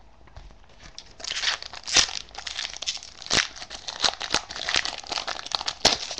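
Plastic trading-card pack wrapping crinkling and tearing as it is handled and opened. The dense crackling starts about a second in.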